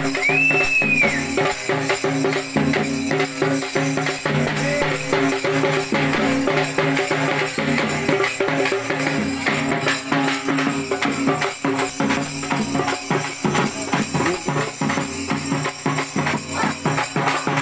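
Instrumental folk music: drums beating a fast, dense rhythm with jingling, rattling percussion over a steady low drone, and a short high arching note right at the start.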